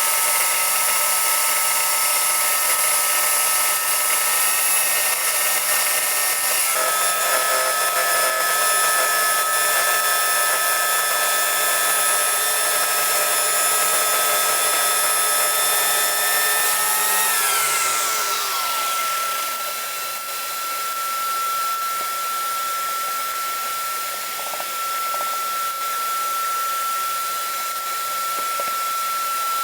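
Electric power tool motor running at a steady whine. It is switched off about two-thirds of the way through and winds down in falling pitch, while a steady high-pitched whine from another source carries on.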